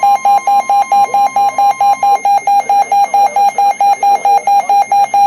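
Weather radio alert: a rapid electronic beeping, about four to five beeps a second, with a fainter steady alert tone under it that stops about two seconds in. It marks a new warning coming in over the weather radio broadcast.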